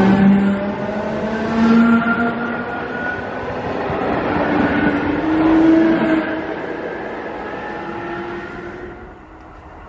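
Czech Railways class 460 electric multiple unit moving off past the platform, its traction motors whining in several slightly rising tones over wheel-on-rail rumble. The sound swells as the cars pass, then fades as the train leaves, dropping away near the end.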